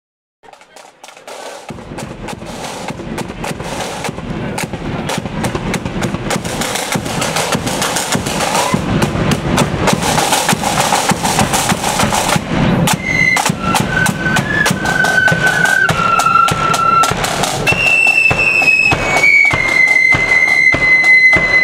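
Marching flute band: rope-tensioned side drums and a bass drum beating a march rhythm, growing steadily louder. About 13 seconds in the flutes come in with a high melody over the drums.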